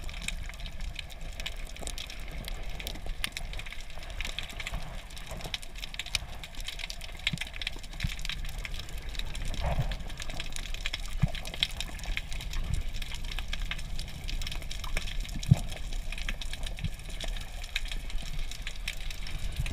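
Underwater ambience picked up by a camera in its housing: a steady low water rumble under a constant hiss of fine crackling clicks, with a few louder knocks here and there.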